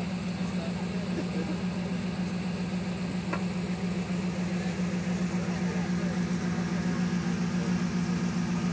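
Range Rover's LS1 V8 engine running at a steady idle with an even, fast pulse, and one faint sharp click a little past three seconds in.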